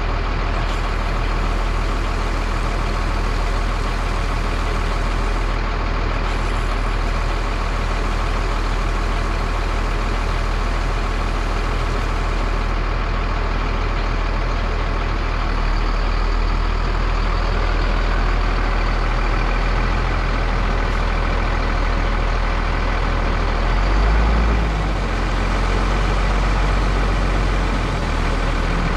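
A 2000 Freightliner FL70 water truck's diesel engine running steadily at idle, with an even hiss over it. About 24 seconds in, the engine rises briefly and gets louder as the truck pulls forward.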